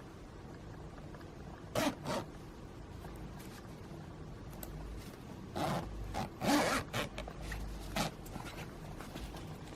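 Zipper on a padded laptop case being pulled in short rasping runs: two quick pulls about two seconds in, a cluster of pulls a few seconds later, and one more near the end.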